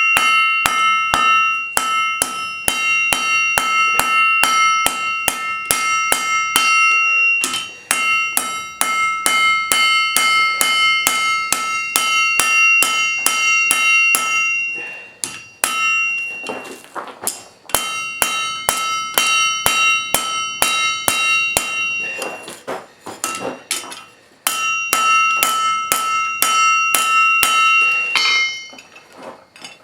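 Blacksmith's hammer striking steel on an anvil, about three blows a second, each with a high metallic ring that carries between strikes. The hammering comes in runs broken by short pauses, the sound of forging a steel dagger blade.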